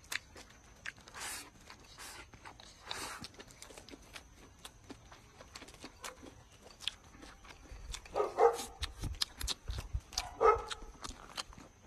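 Close-up chewing and crunching of someone eating, with many small clicks throughout. A dog barks twice, short and sharp, about eight and ten and a half seconds in.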